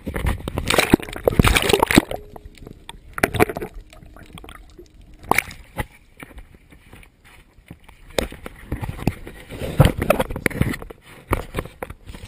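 Water splashing and sloshing at a boat's side, mixed with irregular knocks and rubbing from a camera and fishing rod being handled, loudest in the first two seconds and again from about eight to eleven seconds in.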